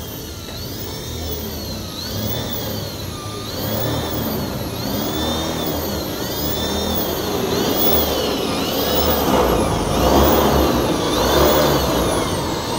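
A handheld power drill whining as it drives screws into corrugated metal sheeting. The motor pitch rises and falls over and over, about every second and a half, and a rougher grinding noise builds through the second half.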